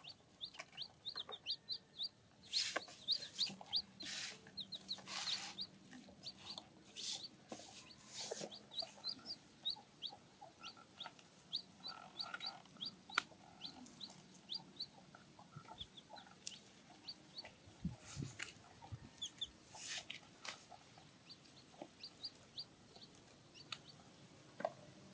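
Baby chicks peeping: short, high cheeps in quick runs that go on throughout, with a few scattered rustles and knocks.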